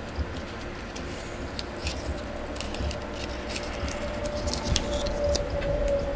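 Rapid small clicks and crinkles of plastic being handled, thickest in the middle seconds, over a faint steady tone.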